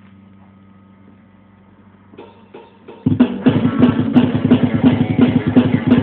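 Electric guitar and drums come in loudly about three seconds in, playing a fast, even rock rhythm, after a quiet stretch with a faint steady hum and a few hits.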